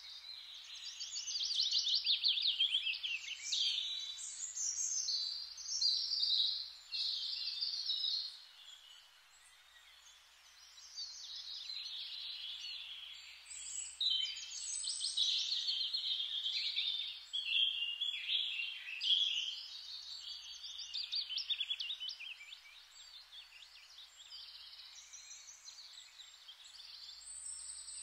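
Several songbirds singing at once in woodland, overlapping chirps and rapid trills, with a brief lull about nine seconds in.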